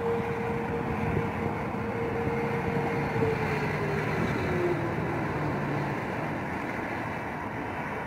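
Distant outdoor warning siren holding one steady tone, then winding down in pitch from about three seconds in and fading out. A steady rushing noise of wind and background runs underneath and is the louder sound.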